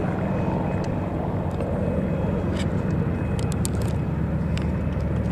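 Steady low drone of piston-engined propeller aircraft flying at a distance, with a few faint ticks about halfway through.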